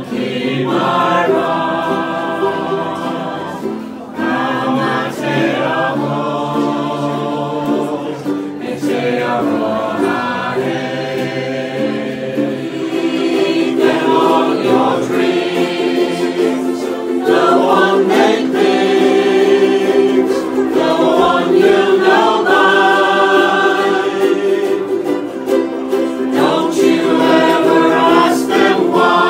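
A group of mixed voices singing together in chorus, accompanied by several strummed ukuleles, growing louder about halfway through.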